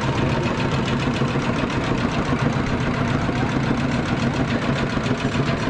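An engine idling steadily, a continuous low hum over street noise.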